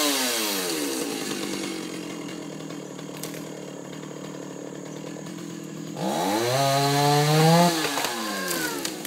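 Two-stroke chainsaw falling from a rev to a steady idle, then revved up again about six seconds in, held for nearly two seconds, and let back down to idle.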